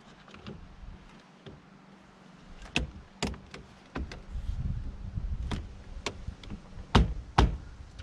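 Airbag module being pressed into a car's steering wheel hub by hand: a string of sharp clicks and knocks, the loudest two close together near the end, over low rumbling handling noise.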